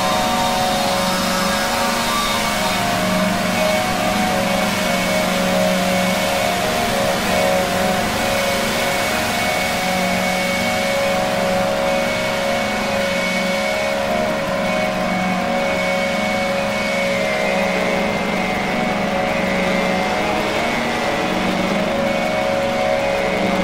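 Droning soundtrack: a dense cluster of held tones over a steady rushing hiss, with no beat or pauses.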